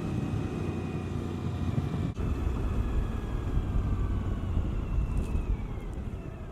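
2014 Suzuki V-Strom 1000's V-twin engine running on the move, heard through a helmet mic under heavy low wind rumble; the engine's pitch slowly falls in the second half, with a brief dip in sound about two seconds in.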